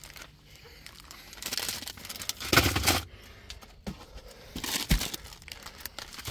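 Plastic-wrapped packs of Peeps marshmallow candy crinkling and rustling as they are handled, in two bursts, with a dull knock about five seconds in.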